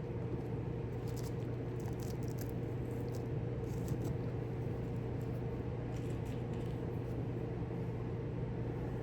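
Steady low hum with a fainter, higher steady tone above it, from a running machine or appliance in the room, with a few faint light clicks and taps.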